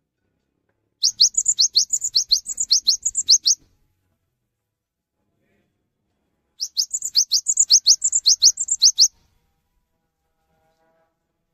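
Cinereous tit (gelatik batu) singing: two rapid trills of sharp, rising chirped notes, about five a second, each trill lasting about two and a half seconds with a pause of about three seconds between them.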